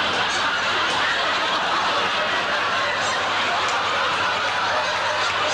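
Studio audience laughing continuously.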